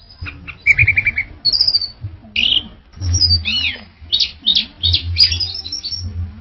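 Orange-headed thrush (anis merah) singing continuously: a varied run of quick whistled notes, short trills and sweeping notes, ending near the end.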